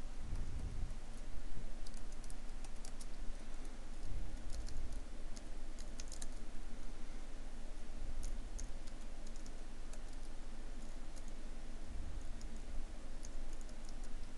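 Computer keyboard keys clicking in short, irregular runs, with a few soft low thumps, over a steady low hum.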